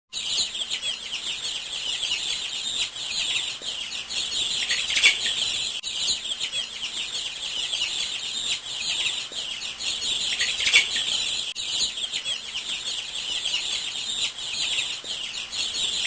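A dense chorus of many small birds chirping continuously, their quick high notes overlapping, with a few louder chirps standing out about five and eleven seconds in.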